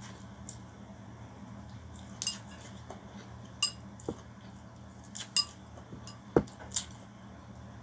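Plastic chopsticks clicking and tapping against a ceramic bowl and plastic food container while eating noodles: about six sharp, short clicks scattered through, a few with a brief ring. A steady low hum runs underneath.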